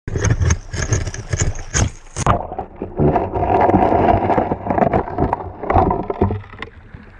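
Stones knocking and scraping in a creek, heard through a camera held underwater, with muffled churning water. Sharp clacks come in the first two seconds, then a denser rushing, grinding noise from about three seconds in.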